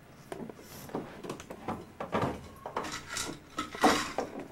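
Bottles and jars knocked and shuffled about on the shelves of a bathroom medicine cabinet: a run of irregular clicks and clunks, the loudest nearly four seconds in.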